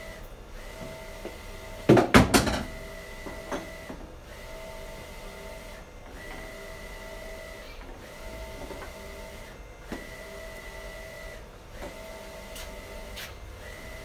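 Wide-format inkjet printer running, its print-head carriage sweeping back and forth with a whirring tone that breaks off briefly about every two seconds. About two seconds in there is a loud clatter, with a few small clicks later on.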